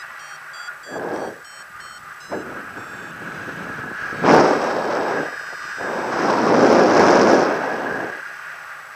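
Wind gusting across the microphone of a paraglider pilot in flight, with a sharp loud gust about four seconds in and a longer swell of wind a little later. Short high beeps from a flight variometer repeat through the first few seconds.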